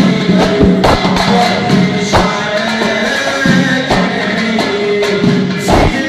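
A man sings a Sulamiyya Sufi devotional chant over hand-struck bendir frame drums beating a rhythm.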